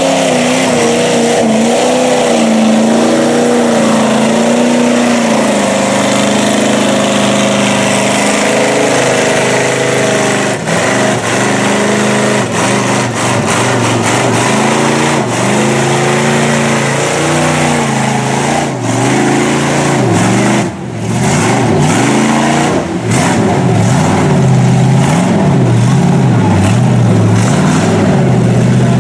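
Engine of a lifted Chevy mud truck on large tractor-tread tires revving as it churns through muddy water. The pitch rises and falls throughout, and near the end the throttle is blipped up and down about once a second.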